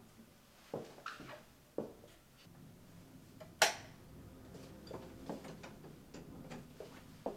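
Quiet handling of a door and soft footsteps: scattered light knocks and clicks, with one sharp click a little over three and a half seconds in. A faint low hum sits under it from about halfway through.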